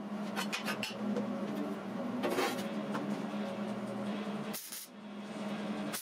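Background music with sustained tones, over which short bursts of MIG welding hiss sound about two seconds in and again near the end: tack welds on a steel tube frame. A few light clicks come in the first second.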